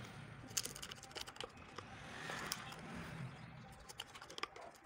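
Light, scattered clicks and scrapes of plastic on plastic: a disposable plastic cup and a plastic spoon being handled while mixing epoxy resin, with a soft rustling swell about two seconds in.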